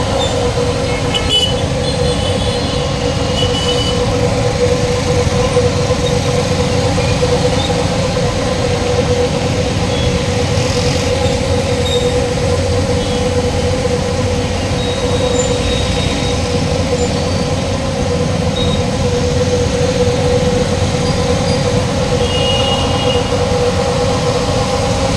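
Truck-mounted sewer jet rodding machine running steadily, its engine and pump making a low rumble with a steady whine over it.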